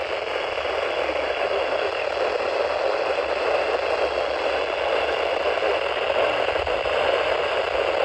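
Steady static hiss from a Midland NOAA weather radio's small speaker, with no station coming through on the weather channel it is tuned to.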